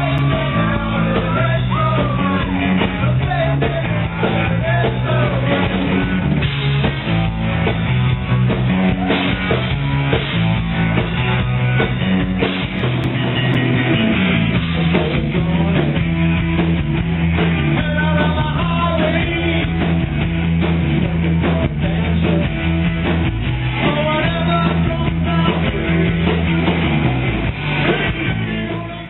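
Rock song with a lead singer, electric guitar, bass and drum kit playing steadily. It cuts off at the very end.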